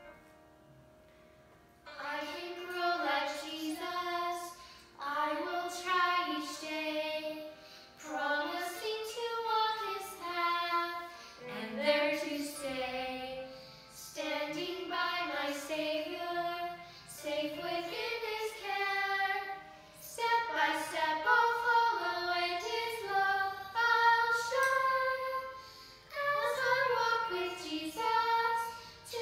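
A boy and a woman singing a children's church song together in phrases, along with recorded music. The singing starts about two seconds in.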